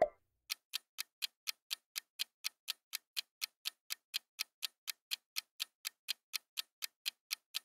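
Clock-tick countdown sound effect: a steady, even ticking at about four ticks a second.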